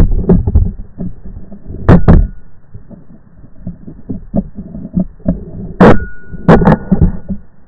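Irregular muffled thumps and rubbing on the small microphone of a keychain camera strapped to a model rocket, with a few sharp clicks: one about two seconds in and two more near the end.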